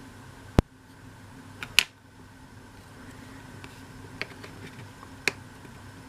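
Sharp clicks and taps of thin laser-cut MDF pieces being handled and pressed together: a loud click about half a second in, another near two seconds, then lighter ticks, over a faint steady hum.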